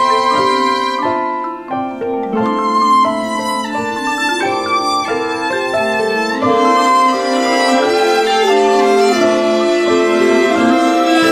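Instrumental chamber music with violin carrying the melody over held, layered string chords that shift every second or so.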